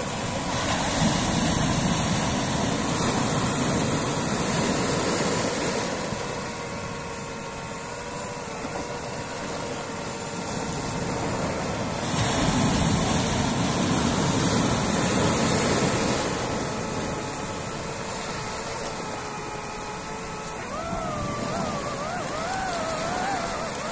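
Quadcopter drone's electric motors and propellers whining steadily over a rushing wind noise. The noise swells louder twice, and near the end the whine wavers up and down as the throttle changes.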